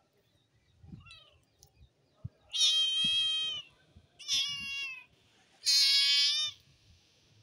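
Kitten meowing: a faint short call about a second in, then three loud, high-pitched meows, each lasting under a second.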